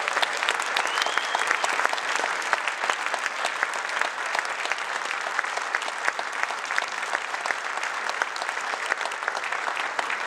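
A large audience applauding, dense steady clapping that eases slightly toward the end.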